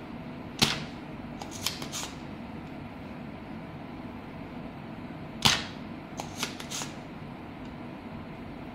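Spring-loaded desoldering pump (solder sucker) firing with a sharp snap twice, about five seconds apart, each snap followed by a few lighter clicks. It is sucking molten solder off a connector's pins on a circuit board to free the connector.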